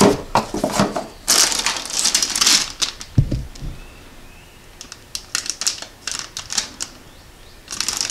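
Plastic bags crinkling and cardboard rustling, with scattered light clicks, as bagged engine valves are handled and lifted out of a foam-lined box. The rustling is densest in the first few seconds, then thins to sparse clicks, with a short rustle again near the end.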